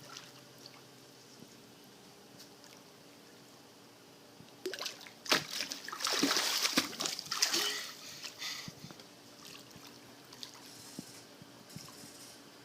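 Water splashing and sloshing for about four seconds, with sharp knocks mixed in, starting about five seconds in and then dying down to a faint trickle.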